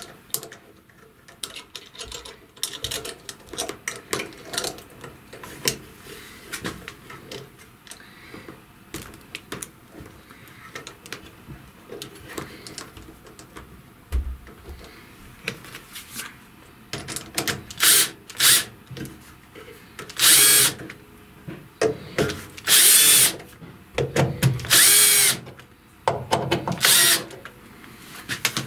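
Small clicks and knocks of brass pipe fittings being handled and fitted, then a cordless drill-driver run in short spurts near the end: two quick blips followed by four runs of about a second each, driving screws to fasten a pipe clamp to a wooden post.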